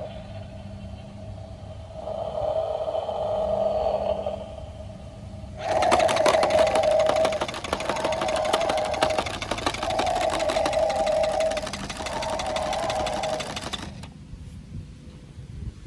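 Bouncy toy transport truck switched on at its cab button: first an electronic tone, then from about six seconds a loud, fast mechanical rattle of its motor with a tone sounding over it in four pulses. It cuts off suddenly at about fourteen seconds.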